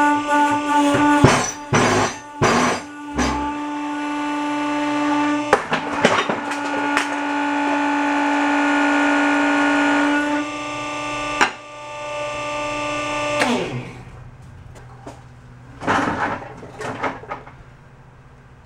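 Electric motor of a shop press running with a steady whine while steel parts clank against the press blocks as a shaft is pressed out of a carousel hub. About 13 seconds in, the motor shuts off and its pitch falls away, leaving only a few soft knocks of the parts being handled.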